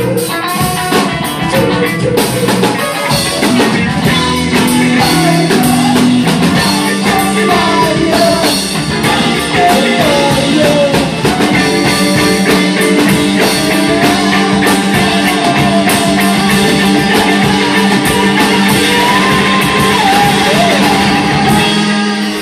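Live rock band playing: a woman singing over electric guitars, bass and drum kit.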